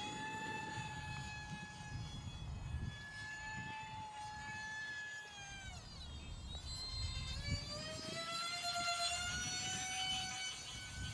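Whine of the E-flite UMX A-10's 30mm electric ducted fans in flight: a steady high whine whose pitch drops sharply about six seconds in, then climbs back up, over a low rumble of wind on the microphone.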